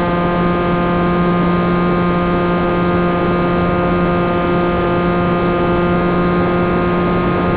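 Wing Wing Z-84's electric motor spinning its propeller at a steady speed, a constant whine with a low hum, run up to check the propeller's balance.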